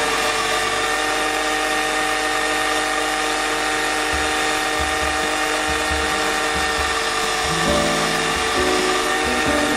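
Background music with a beat that comes in about four seconds in, over the steady whine of a bench buffing machine's motor as an aluminium part is polished on its wheel.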